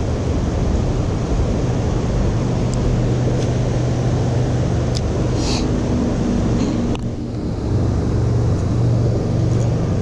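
Steady rushing of creek water pouring over a low weir, with wind on the microphone and a few light clicks.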